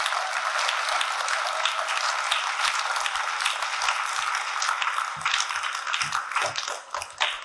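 Audience applauding, many hands clapping at once, thinning to scattered claps over the last couple of seconds.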